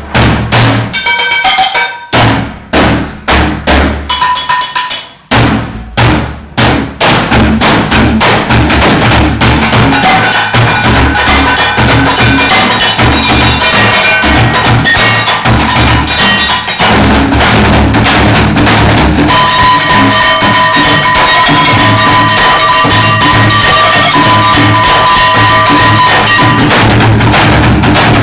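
Percussion ensemble beating plastic barrel drums with sticks and striking a wall of hanging metal pots and pans. Loud, spaced hits for the first several seconds give way to a dense, continuous rhythm, and ringing metal tones join in about two-thirds of the way through.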